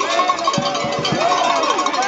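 Festival music with a steady high held tone, over metallic jingling and the voices of a crowd.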